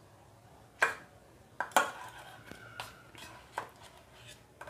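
A metal spoon clinking against steel plates and bowls: half a dozen sharp clinks, and the loudest, about two seconds in, rings on for about a second.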